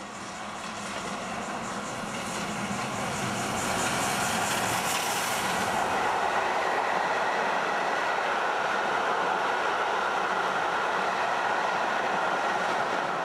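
Southern Railway Lord Nelson class 4-6-0 No. 850 'Lord Nelson', a four-cylinder steam locomotive, approaching and passing close by at speed. Its rapid exhaust beats grow louder over the first few seconds, then give way to the steady rolling rumble and clatter of its coaches going past.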